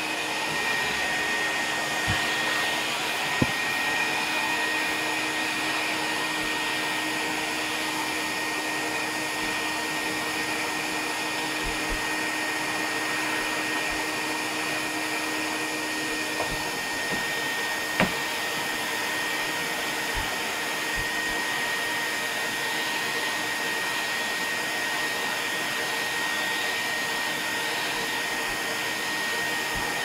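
Filter Queen canister vacuum cleaner running steadily, an even motor drone with a steady high whine over it, and a couple of sharp knocks as the hose nozzle bumps about.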